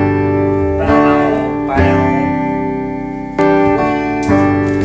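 Hollow-body archtop electric guitar playing chords, each struck and left to ring, a new chord about every second.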